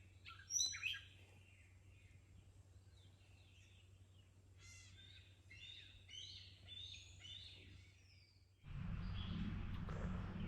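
Faint birdsong from several songbirds, many short chirps and whistled phrases. Near the end a louder steady rushing noise cuts in and covers them.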